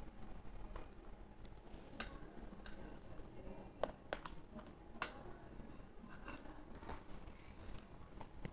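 Spatula scraping and tapping against a nonstick kadai while stirring a thick onion-garlic spice paste, faint, with scattered sharp clicks, the loudest about four and five seconds in.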